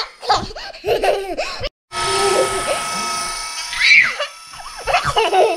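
Young children squealing and laughing excitedly. A small light-up toy whirs steadily for about a second and a half in the middle, after the sound briefly cuts out.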